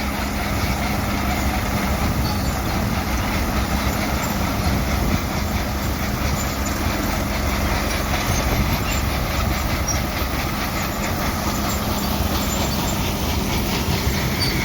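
Caterpillar crawler tractor and the John Deere pull-type combine behind it, running steadily at work in the wheat, with an even engine hum over a constant rumble.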